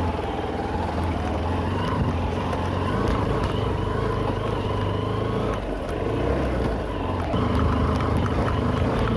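Motorcycle engine running steadily as the bike rides slowly over a rough, stony dirt track, dipping briefly a little past halfway.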